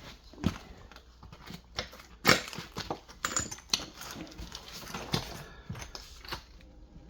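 Scattered, irregular knocks and clicks, the sharpest about two seconds in.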